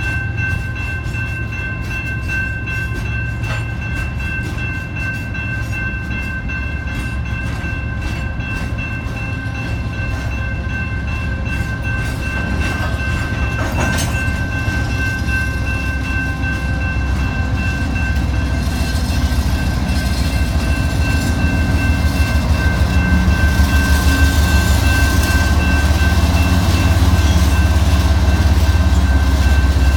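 Train cars rolling past with a steady low rumble and faint clicking of wheels over the rails, with a thin steady high tone over it. The rumble grows louder past the middle.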